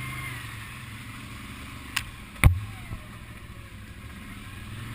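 ATV engine running steadily at low speed over rough trail, with two sharp knocks about two seconds in, the second and louder one half a second after the first, as the machine jolts over the rugged ground.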